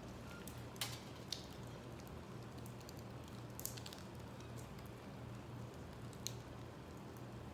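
A few short, sharp cracks of roasted shii (chinquapin) nut shells being cracked open to eat, spread out over several seconds, over a steady low hum.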